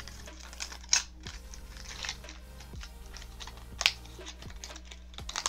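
Clicks and light rattles of fishing lures and their plastic packaging being handled, with sharp clicks about a second in and just before four seconds, over quiet background music.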